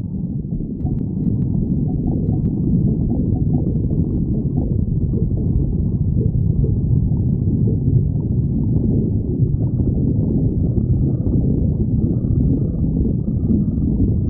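Stomach growling: a loud, continuous low rumbling gurgle that goes on without a break.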